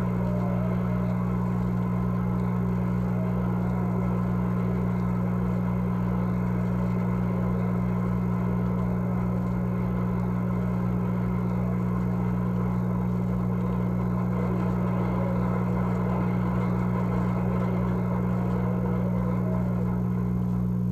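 A loud, steady low electrical hum with no change in pitch or level, over faint indistinct background noise. It sounds like mains hum on an old record transfer.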